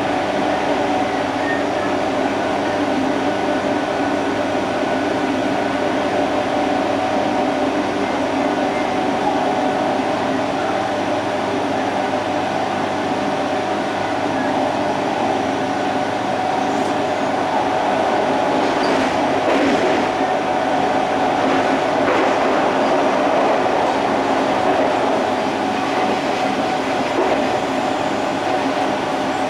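Odakyu 30000 series EXE Romancecar heard from inside its vestibule deck while running at a steady speed: a continuous rumble of wheels on rail under a steady hum. The onboard shop's refrigerator runs alongside. A few faint clicks come between about 17 and 22 seconds in.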